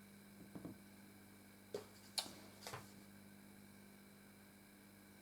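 A few faint, sharp clicks of Lego plastic pieces being handled, over a steady low electrical hum.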